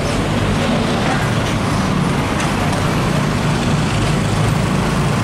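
Diesel engines of heavy cargo trucks running as they roll slowly past close by, a steady low engine drone.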